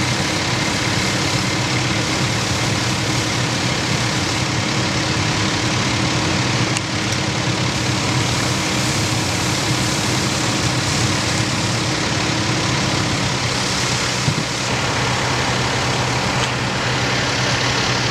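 Fire engine's diesel engine running steadily, an even low hum with a constant hiss over it.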